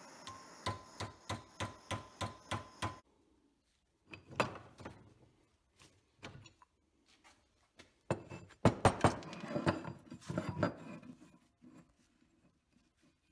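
Hammer tapping a torch-heated aluminum strip about three times a second to bend it, over the steady hiss of a handheld gas torch; both stop abruptly about three seconds in. After that, scattered knocks and clatter of metal parts being handled.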